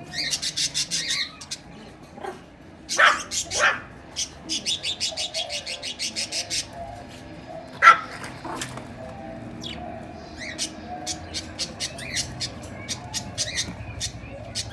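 Caged pet bird giving rapid runs of sharp, high chirps, about eight a second, in several bursts. Two louder, lower cries break in, at about 3 seconds and about 8 seconds.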